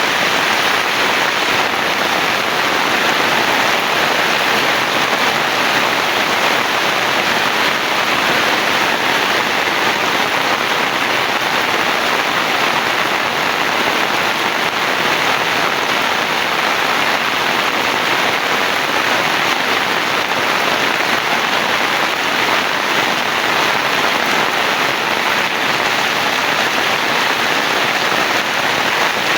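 Heavy rain falling steadily, a dense even hiss of rain on surfaces with no let-up.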